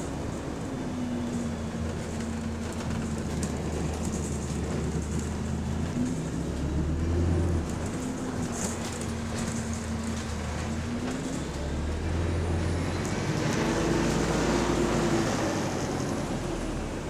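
Diesel single-deck bus heard from inside the saloon while under way: a steady engine drone with a whine that rises and falls a few times. It gets louder near the end as the bus pulls harder.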